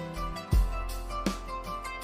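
Background music: a track with guitar and a steady beat.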